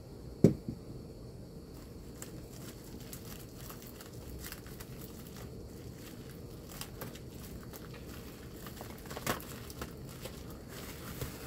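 Crinkling and rustling of foil-faced insulated flexible duct being handled and pushed onto its connector, with scattered small clicks. A sharp knock about half a second in is the loudest sound, and a smaller one comes about nine seconds in.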